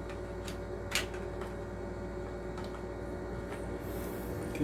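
Small electromagnetic aquarium air pump, just plugged in, running with a steady buzzing hum. It is working again after the repair, pushing air out of its nozzle. There is one short click about a second in.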